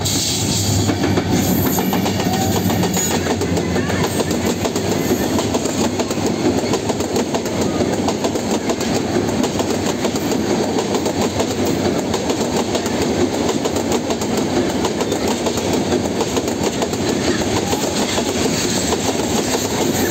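Diesel-hauled intercity passenger train passing close by. Its coaches' wheels clatter steadily over the rail joints in a loud, continuous rush.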